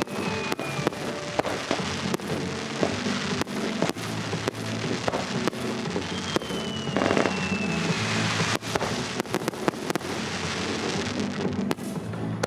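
Fireworks shells bursting in quick succession, many sharp bangs over music, with a long falling whistle near the middle.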